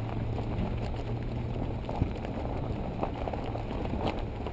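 Off-road vehicle driving slowly over a gravel riverbed: a steady low engine hum with scattered crunching and clicking from the tyres on stones, and one sharp knock about two seconds in.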